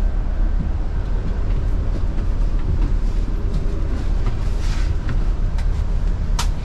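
Steady low rumble of a large road vehicle running, with a few brief hisses in the second half.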